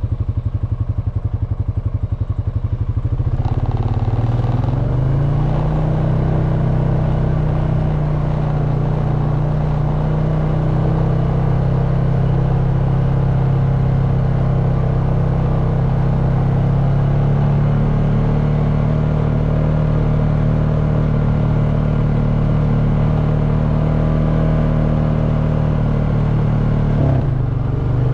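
Honda FourTrax Foreman ATV's single-cylinder engine riding along a dirt road. It is quieter, with a slow pulsing, for the first few seconds, then rises in pitch as the ATV speeds up and runs at a steady pitch, with a brief dip near the end.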